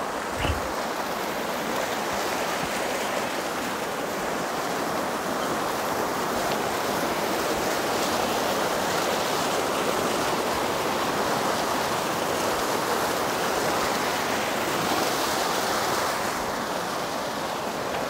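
Water rushing steadily down a narrow stone-and-concrete channel beside the path, a continuous splashing flow that swells a little in the middle and eases slightly near the end.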